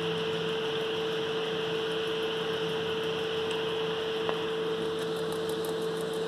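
Steady machine hum with a constant mid-pitched tone under a soft hiss, and a single light tick a little past four seconds in.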